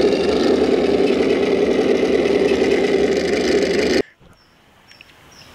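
Toy tank's engine sound effect: a steady engine rumble that cuts off suddenly about four seconds in.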